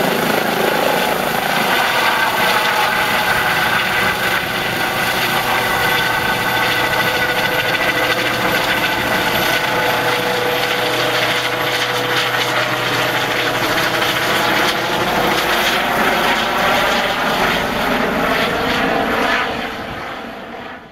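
Eurocopter EC135 rescue helicopter flying away after take-off: steady rotor and turbine noise with a faint whine over it, fading out near the end.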